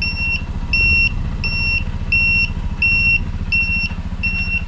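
Turn-signal beeper of a 2021 BigHorn golf cart sounding with the turn signal switched on: a short, high beep repeating evenly about every three-quarters of a second, over a low steady rumble.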